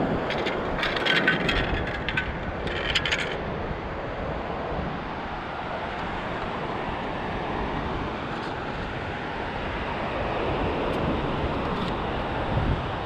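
Steady rush of ocean surf and wind on the microphone, with a quick run of sharp clicks in the first few seconds.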